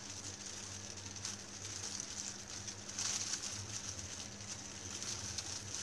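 Thin plastic food-prep gloves crinkling and rustling as hands roll a betel leaf around a filling, with a brief louder crinkle about three seconds in, over a steady background hiss and low hum.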